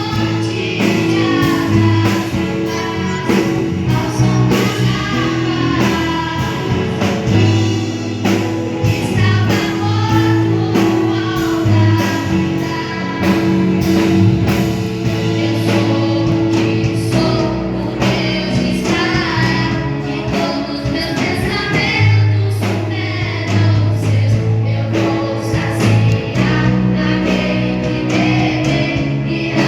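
Gospel song with a group of voices singing over a band with bass and a steady beat.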